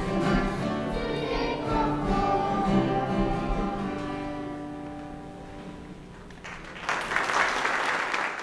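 Children's choir singing the end of a song with instrumental accompaniment, the last held note fading away. About six and a half seconds in, the congregation breaks into applause, which cuts off abruptly at the end.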